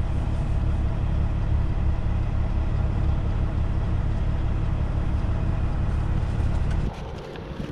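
Peterbilt 579 semi truck's diesel engine idling, a steady low hum heard inside the cab. The hum drops away abruptly near the end.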